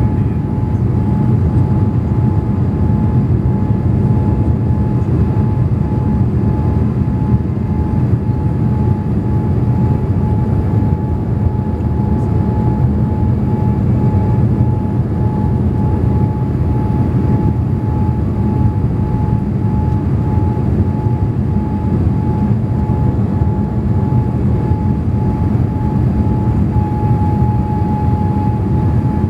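Boeing 787 Dreamliner cabin noise on approach: a steady low rumble with one high, unchanging whine held throughout. The uploader takes the whine for hydraulic noise, probably set off by the deployed flaps.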